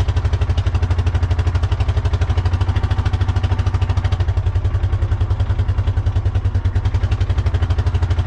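Four-wheeler (ATV) engine running steadily at idle with an even, rapid putter, just started after being primed from sitting unused in the cold.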